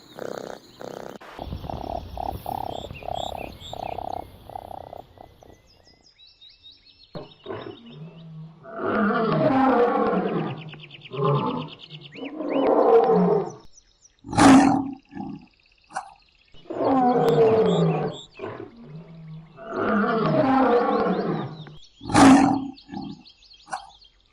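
Lion roaring: a series of long, rough roars repeated several times, with a few shorter, sharper calls between them.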